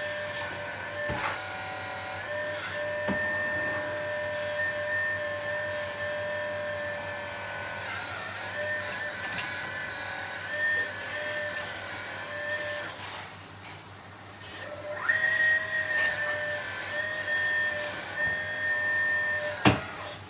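The electric pump motor of a 1/12-scale RC hydraulic excavator whines steadily as the boom and arm are worked. The whine dips in pitch now and then. It stops about 13 seconds in and starts again about two seconds later, and a sharp click comes near the end.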